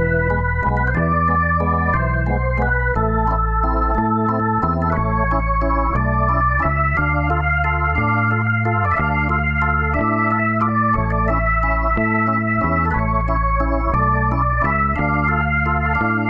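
Background music: held organ-like keyboard chords with a bass line and a melody over them, changing about once a second.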